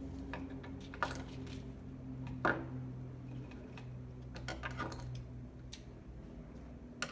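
Light clicks and rustles of dry twigs, seed pods and string being handled while they are knotted onto a nature mobile, with sharper taps about a second in, halfway through and near the end, over a steady low hum.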